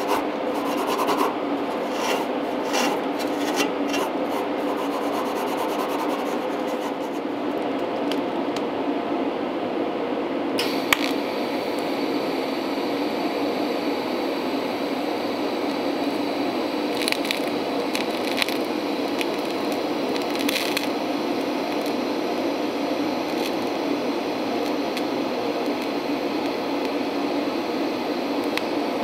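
A Scotch-Brite pad rubbing over a radiator's metal tank in uneven strokes. About eleven seconds in, a sharp click as the TIG arc strikes, then a steady arc hiss while a blocked-off port is brazed shut with silicon bronze wire. A steady low hum runs underneath.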